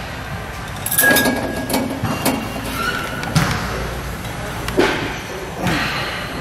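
Weight-stack machine in use during seated leg curls: a few irregular thuds and knocks, roughly a second apart.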